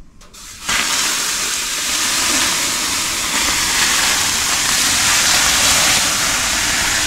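Water poured from a metal cup onto the hot stones of a wood-burning tent-sauna stove, flashing to steam with a loud, steady hiss that starts suddenly under a second in.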